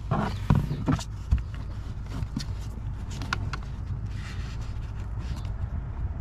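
Plastic trim clips and the lowered under-dash bezel of a Tesla Model 3 clicking and rattling as they are worked loose with a screwdriver. A few sharp clicks come in the first second and scattered light ticks follow, over a steady low hum.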